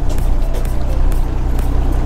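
Background music with a steady beat of about two strokes a second, over a steady low drone.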